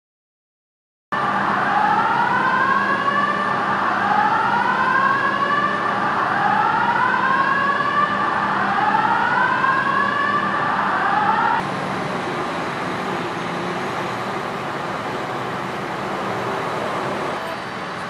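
Fire truck sirens wailing, with rising sweeps that repeat about every two seconds; they start about a second in. About twelve seconds in the sirens stop, leaving the steady low rumble of idling fire engines.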